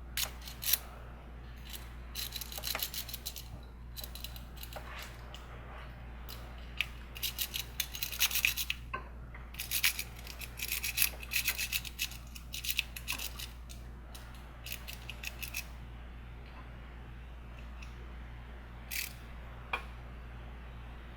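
Sparrows Octo Rake lock pick being raked in and out of a see-through practice pin-tumbler lock under tension: bursts of rapid, scratchy metal clicking as it scrapes over the pins, with pauses in between. It goes quiet for the last few seconds apart from a couple of single clicks.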